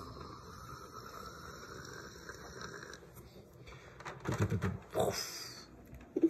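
A voice making dog-like sound effects for a toy dog: a high whine held for about three seconds, then a quick run of low, rough grunting pulses about four seconds in. A short click near the end.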